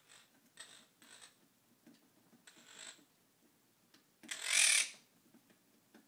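Quaker parrot (monk parakeet) making a few short, soft scratchy sounds, then one loud squawk lasting under a second about four seconds in.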